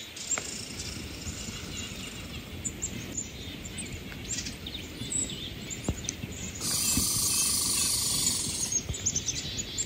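Small songbirds chirping and twittering over a low outdoor background hiss. About two-thirds of the way in, a louder hiss with a steady held tone sounds for about two seconds.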